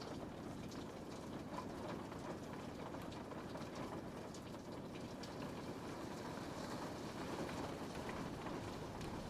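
Steady rain falling on a window pane, a continuous hiss with many small drops tapping on the glass.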